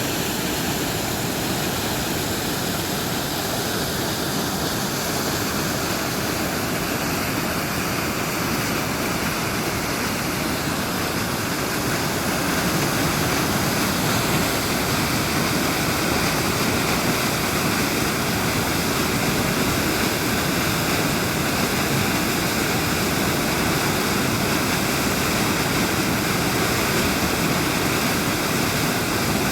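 Waterfall: a steady, even rush of falling water, growing a little louder about twelve seconds in.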